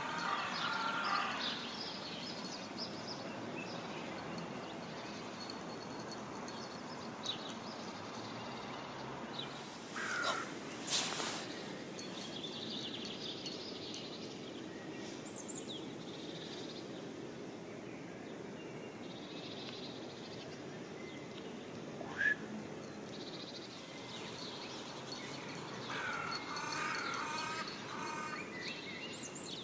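Outdoor ambience with a steady hiss and birds calling in short repeated calls, at the start and again near the end. A few brief knocks or rustles come about a third of the way in and once more past the middle.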